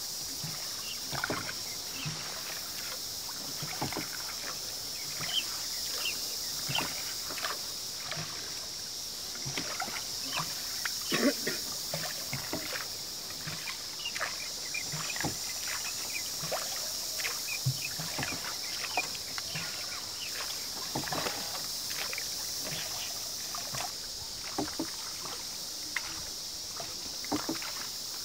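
Wooden rowboat being rowed on calm water: irregular small splashes, drips and knocks of the oars, over a steady high hiss.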